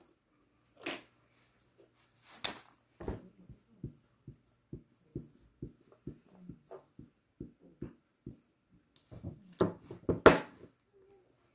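Scattered light clicks and taps of a marker pen and fingers on paper over a desk, with a steady run of small ticks in the middle. A few louder knocks come near the end.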